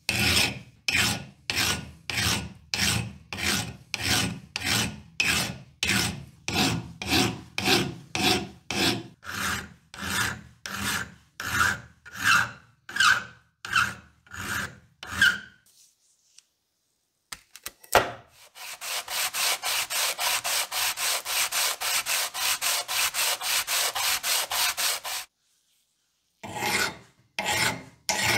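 Hand file rasping over the rusty iron flap of an antique ox-tongue clothes iron held in a vise, about two strokes a second, with several strokes giving off a high ringing tone. After a short pause comes a quicker, even run of about five strokes a second for some seven seconds, and slower file strokes return near the end.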